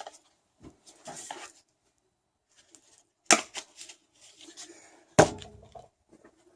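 Handling noises as tools and metal parts are moved about: rustling and light clatter, with two sharp knocks about three and five seconds in.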